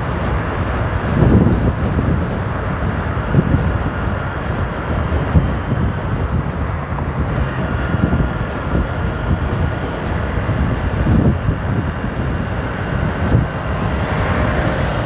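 Wind buffeting the microphone on a moving 150 cc motorcycle, a loud gusty rumble over the steady road and engine noise of the ride.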